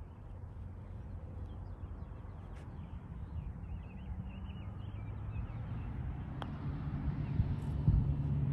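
Wind rumbling on the microphone, with faint bird chirps. About two-thirds through comes a single light click: the putter striking the golf ball.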